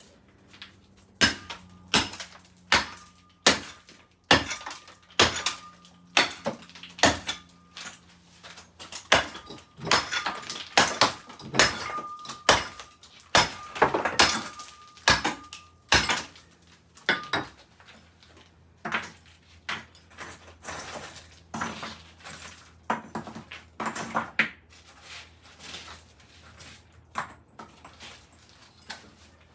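Concrete floor being broken out by hand: a string of sharp, irregular hits about one or two a second, with broken chunks clattering.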